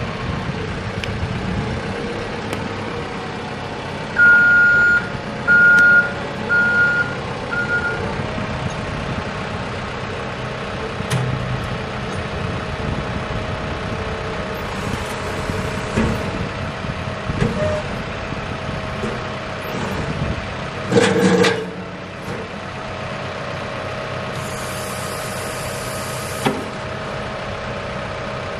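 Caterpillar 415F skip loader's diesel engine idling steadily while its loader bucket and rear grader blade are worked through the hydraulics. A backup alarm beeps four times about four seconds in, a short loud clunk comes later on, and a brief high hiss follows near the end.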